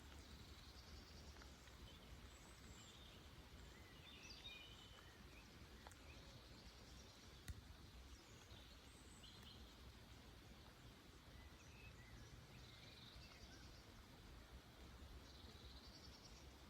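Faint, scattered bird chirps over a steady low background rumble, with one sharp click about seven and a half seconds in.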